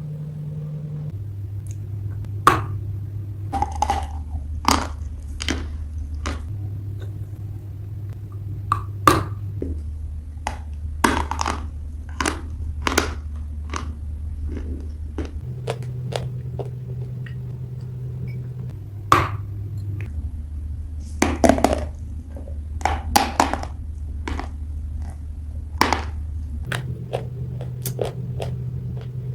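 Wet gray clay being bitten and chewed close to the microphone: irregular crunchy, sticky bites and squelches, some louder than others. Underneath runs a steady low drone that steps to a different pitch every few seconds.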